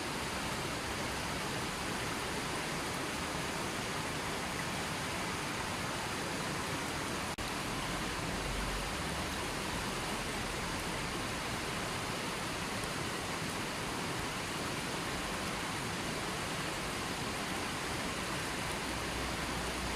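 River water flowing in a steady, even rush, with one brief dropout about seven seconds in.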